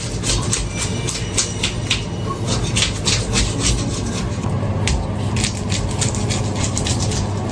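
A knife scraping scales off a carp in quick, rough strokes, about four or five a second, over a steady low hum.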